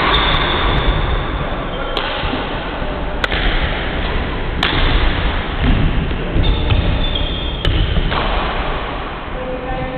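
Badminton rackets striking a shuttlecock in a rally: five sharp pops at uneven gaps of one to three seconds, over a steady rushing hall noise.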